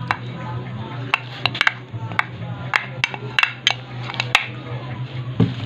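A utensil clinking against a mixing bowl in a dozen or so sharp, irregular clicks as chopped pork and chicken for sisig are mixed, over a low steady hum.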